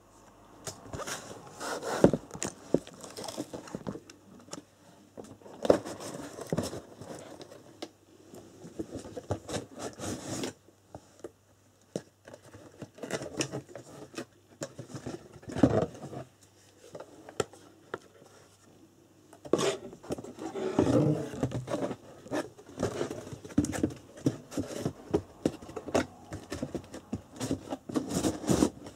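Unboxing handling noises: a cardboard box and its packaging scraped, rustled and knocked about in irregular bursts, with sharp clicks among them.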